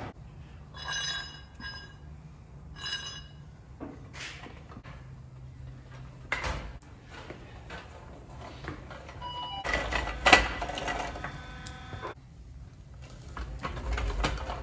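An engine stand holding a bare 440 big-block is wheeled across a concrete shop floor, its casters rattling. Two short metallic squeaks come in the first few seconds, and scattered metal knocks follow, the loudest about ten seconds in.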